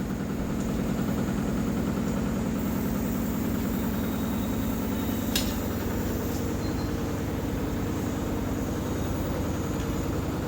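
Steady low motor hum, with a single sharp click about five seconds in.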